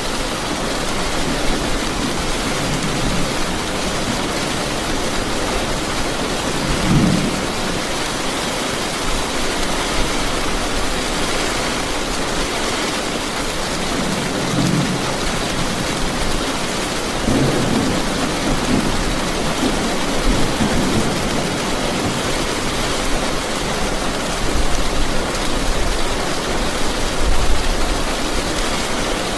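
Steady, heavy rain falling, with low rumbles of thunder swelling up about a quarter of the way in, around the middle, and again for a few seconds after that.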